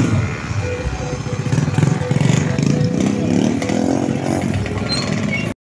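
Several off-road trail motorcycles running and revving as they ride off along a dirt track, engine pitch rising and falling; the sound cuts off abruptly near the end.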